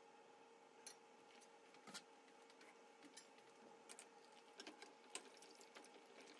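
Near silence: a faint steady hum with a few faint, short clicks spread through it.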